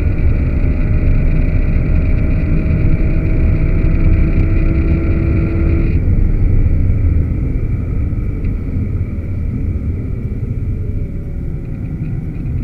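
Aston Martin V12 Vantage's V12 engine heard from inside the cabin, accelerating hard with its note climbing steadily. About six seconds in the sound drops back suddenly as the throttle is lifted, and the engine winds down while the car slows for a corner.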